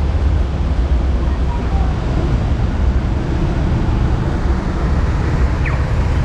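City street traffic: a steady low rumble of road vehicles.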